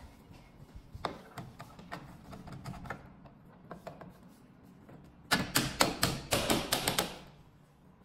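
Metal door handle and backplate clicking and knocking against an aluminium folding-door frame as it is fitted. Scattered light clicks, then a rapid run of about ten sharp clicks lasting a second and a half, a little past the middle.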